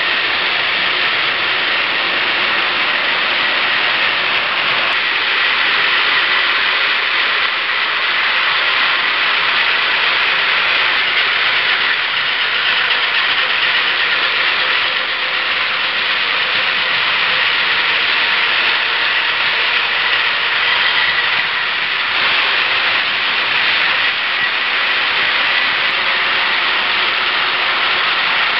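Several battery-powered Plarail toy trains running at once on plastic track: a steady, dense whirring of small electric motors, gears and plastic wheels.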